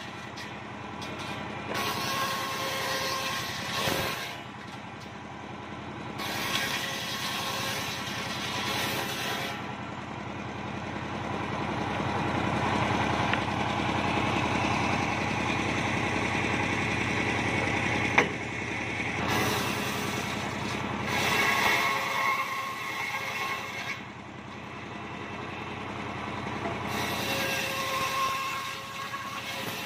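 Large circular saw blade on a homemade engine-driven saw bench running steadily while mahogany planks are fed through it. The cutting rises over the engine hum in several stretches of a few seconds each, and there is one sharp knock a little past the middle.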